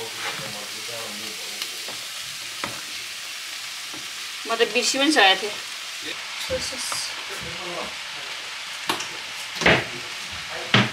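Vegetables sizzling in a hot wok during a stir-fry, with scraping and clatter about halfway through and two sharp knocks near the end.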